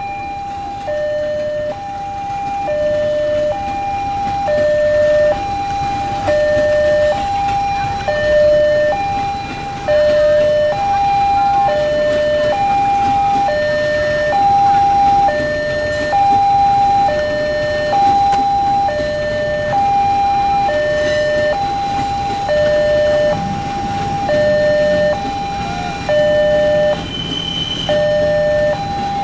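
Railroad level-crossing warning alarm sounding an electronic two-tone signal. A high note and a low note alternate, each about half a second, repeating evenly while the barrier is down for a passing train. A low rumble runs underneath.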